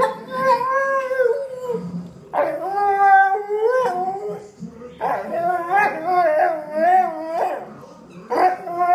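Old English Sheepdog howling in drawn-out, talking-like calls: three long howls, the third wavering up and down, and a fourth starting near the end.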